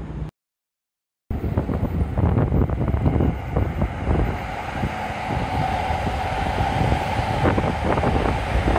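Electric commuter train passing on the tracks: wheels clacking over the rail joints under a steady whine. The sound starts about a second in, with some wind on the microphone.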